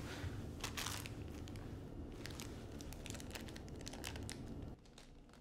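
Small plastic packet of pills crinkling and crackling as it is picked up and turned over in the hands, over a low steady hum that cuts off near the end.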